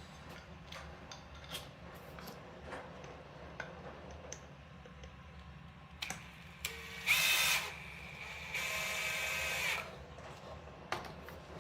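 A power drill runs in two short bursts, the second longer, about a second each, amid scattered small clicks and knocks of handling.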